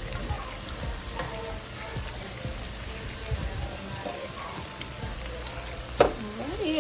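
Squash slices frying in a skillet of hot oil: a steady sizzling hiss, with a spatula stirring through the slices now and then. A short voice-like sound rises and falls near the end and is the loudest thing.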